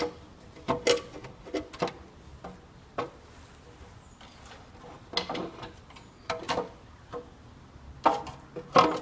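The loose sheet-steel oil pan of a Kia Picanto engine clunks and scrapes against the engine and surrounding metal as it is handled by hand. The clunks come in about six irregular clusters, each with a short metallic ring.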